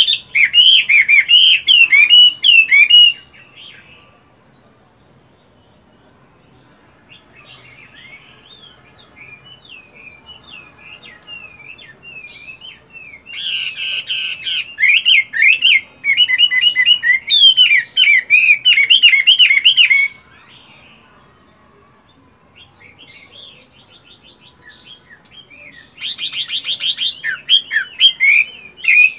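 Chinese hwamei (Hwamei laughingthrush) singing in loud bursts of varied, quickly changing whistled phrases. There are three bursts: one at the start, a long one from about halfway through, and one near the end. The later two each open with a fast trill, and only scattered soft notes fall in the gaps between bursts.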